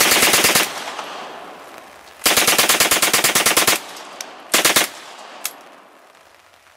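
Machine gun firing on full auto in bursts: a short burst at the start, a longer burst of about a second and a half a couple of seconds in, a brief burst a little later, and two single shots in between.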